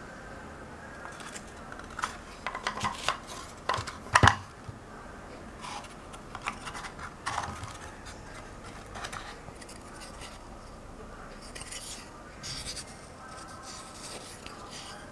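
Thin wooden tiles knocking and clicking against a wooden frame as they are slid out by hand: a run of sharp clicks, loudest about four seconds in, then lighter scraping of wood on wood.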